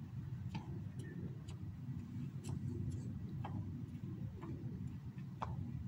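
Faint, irregular clicks, roughly one a second, over a low steady rumble.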